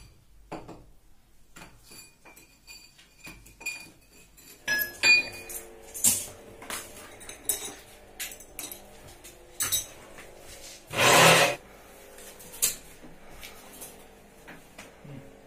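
Scattered clinks, taps and knocks of tools and metal fittings being handled while a split air conditioner is installed, with a few ringing clinks early on. A single louder rushing noise lasts about half a second a little past the middle.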